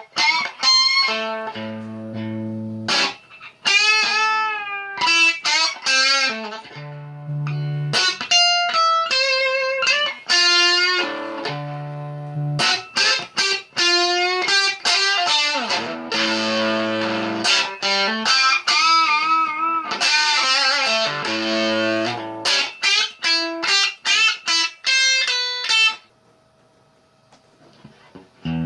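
Electric guitar built from a DIY Telecaster kit, played through an amp: a run of single notes with vibrato and bends, mixed with low notes and chords. It stops about 26 seconds in, leaving near silence.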